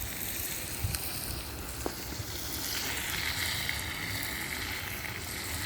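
Curry cooking in a pot over a wood fire, sizzling steadily, with the sizzle growing fuller about three seconds in.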